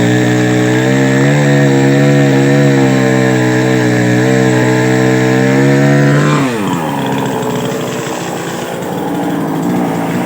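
Two-stroke chainsaw running at high revs, its pitch wavering slightly under throttle. About six seconds in the throttle is released and the engine note falls steeply to a lower, quieter running speed.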